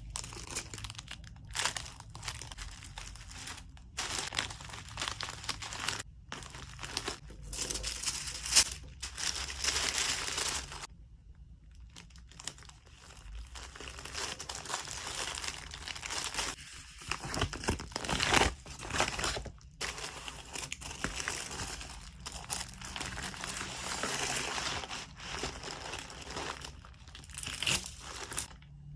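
Packaging material being handled by hand while an order is packed, crinkling and rustling in irregular bursts. There is a short pause about a third of the way through and a few sharper, louder knocks about two-thirds in.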